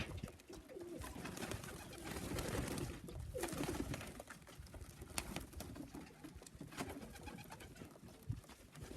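Young racing pigeons cooing, faint and low, with a falling coo about three and a half seconds in and scattered light clicks and taps.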